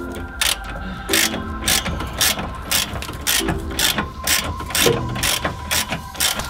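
Ratchet wrench clicking in quick repeated runs, about two to three clicks a second, as the steering guard's mounting bolts are tightened into the chassis.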